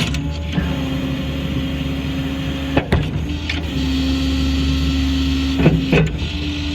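Truck-mounted hydraulic system running with the 6.7 Power Stroke diesel, working the outriggers as the control levers are pulled: a steady hum and whine whose tone changes under load, with sharp clacks of the levers about three seconds in and near the end.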